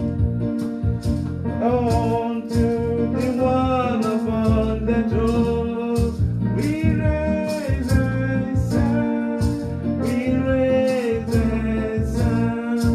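Gospel worship song: a singing voice over instruments and a steady beat.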